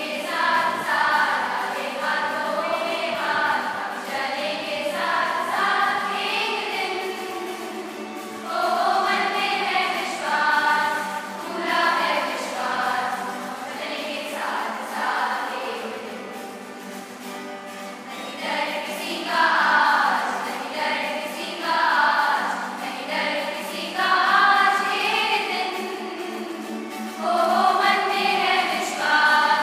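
A choir of schoolgirls singing a song together in phrases that swell and fade every few seconds.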